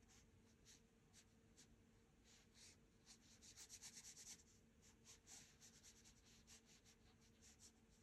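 Faint, short strokes of a paintbrush on watercolour paper, laying in the first light colour, with a quicker run of strokes in the middle.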